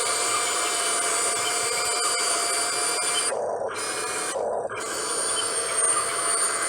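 Electric motors and gearboxes of a remote-control excavator whirring steadily, with the high whine cutting out briefly twice about halfway through.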